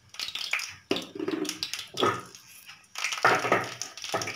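Cumin seeds crackling and popping in hot ghee in a kadai as they splutter, with a few short pitched sounds over the crackle, the loudest about three seconds in.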